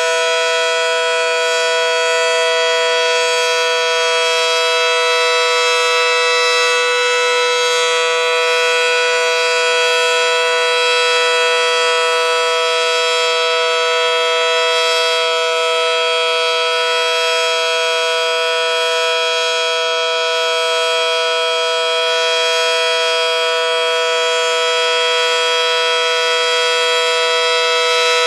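Federal Sign & Signal Model 5T dual-tone outdoor warning siren sounding its steady alert signal: a loud two-note chord held at constant pitch, with no rise or fall. Its large 9/12-port chopper gives the two notes.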